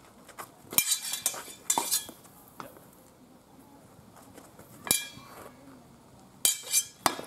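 Blunt steel practice swords clashing against each other and against bucklers in sword-and-buckler sparring, sharp metallic clinks with a short ring: a quick flurry about a second in, a single clash near five seconds, and a few more near the end.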